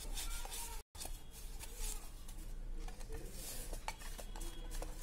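Fingers rubbing ghee around the inside of an aluminium cake tin: an irregular scraping rub with scattered light metallic knocks as the tin is turned in the hand. The audio cuts out for an instant just under a second in.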